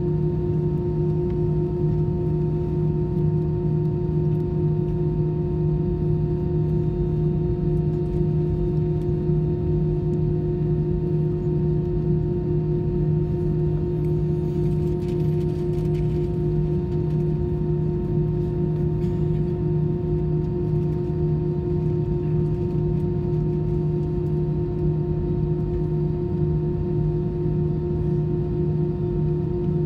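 Airbus A319's jet engines idling, heard inside the cabin by the wing while the airliner waits on the ground: a steady low drone with several constant humming tones layered over it.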